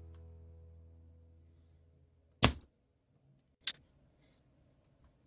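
Background music fading out, then two sharp clicks of a spring-loaded desoldering pump: a loud snap about two and a half seconds in, and a lighter click a little over a second later.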